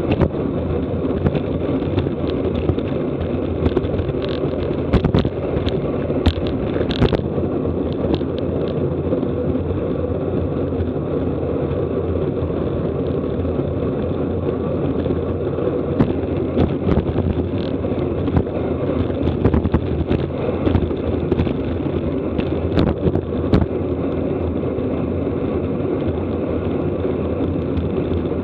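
Steady wind and road rumble on a racing cyclist's camera microphone while riding at speed, with scattered short clicks and rattles.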